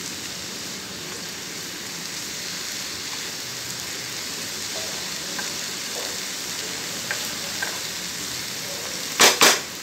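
Chopped mushrooms and onions sizzling as they fry in a pan and are stirred with a wooden spatula: a steady frying hiss with a few faint scrapes, and two sharp knocks near the end.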